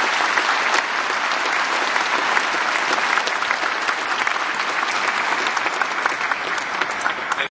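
Audience applauding: dense, steady clapping that cuts off abruptly at the end.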